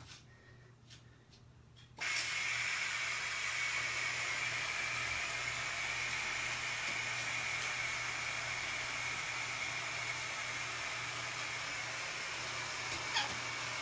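Water turned on about two seconds in and then running steadily into a bathtub with an even hiss.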